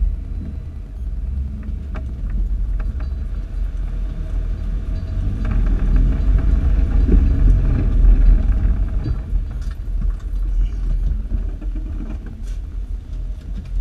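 Jeep driving a muddy, rutted dirt trail, heard through a hood-mounted camera: a low rumble of engine, tyres and wind that grows louder midway, with scattered ticks as mud spatters onto the camera.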